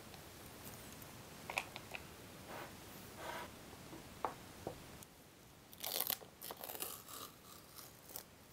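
Metal paint tin being opened and handled: scattered clicks and short scraping and crunching noises, busiest about six to seven seconds in.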